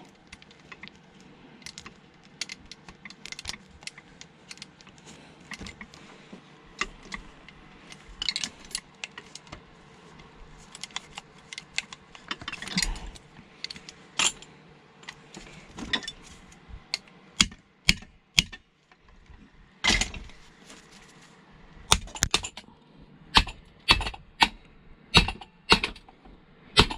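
Hand tools and small metal parts clicking, clinking and knocking as a machine is dismantled by hand, with a run of louder, sharper knocks in the last several seconds.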